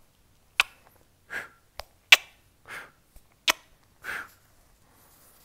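A man blowing kisses: sharp lip smacks, each followed by a short breathy puff of air, about three in all.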